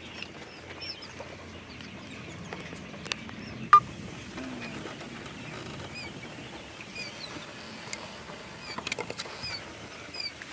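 Quail chicks peeping: short, high, falling chirps repeating throughout. A sharp click comes a little under four seconds in, and a few light taps come near the end.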